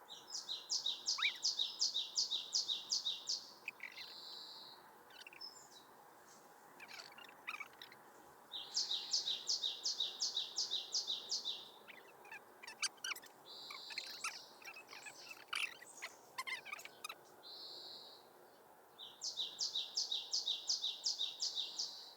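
A songbird repeats a fast, even series of high notes, about ten to a phrase, three times. Shorter chirps from other birds come in between the phrases.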